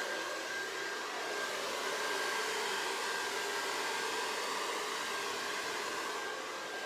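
Hair dryer running steadily on one setting, blowing a steady rush of air with a faint motor whine, used to push poured acrylic paint across a canvas.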